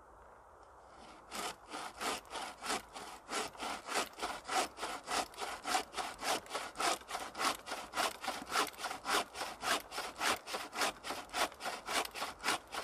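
Homemade wooden-framed bucksaw cutting through a birch pole in steady back-and-forth strokes, about three a second, starting about a second in.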